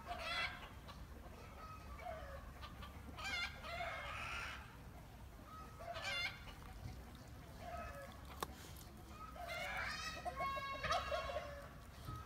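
Chickens calling in short pitched calls every few seconds, with a longer run of calls about ten seconds in.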